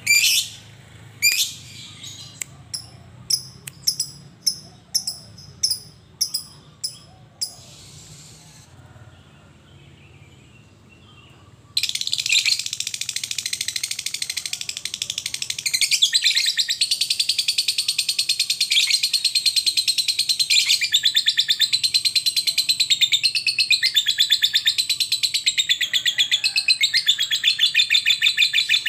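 A lovebird gives a string of sharp, high chirps, falls quiet for a few seconds, then about twelve seconds in breaks into a long, rapid, unbroken chattering trill, the drawn-out 'ngekek' call of a lovebird in full song.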